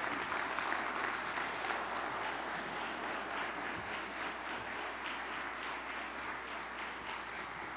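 Church congregation applauding, the clapping gradually dying down toward the end.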